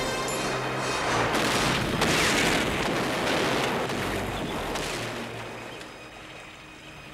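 Film sound effects of a river patrol boat blowing up: several heavy explosion blasts over dense rumbling noise, fading away over the last few seconds.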